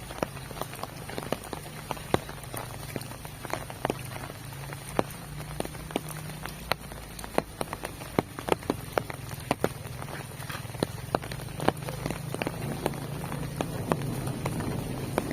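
Heavy rain falling steadily, with many sharp, separate drop hits standing out above the hiss. It grows a little louder near the end.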